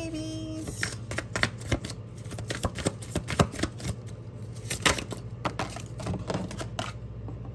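A tarot deck shuffled by hand: a quick, irregular run of card flicks and snaps.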